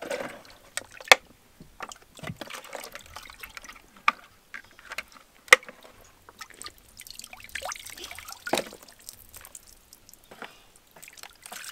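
Water sloshing and trickling as hands wash plastic toy tractors in a plastic tub, with scattered sharp knocks; the two loudest come about a second in and about five and a half seconds in.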